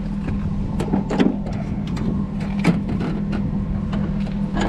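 A truck engine idling steadily, with scattered clicks and clanks from the boat's tie-down straps and hooks being taken off the metal boat trailer.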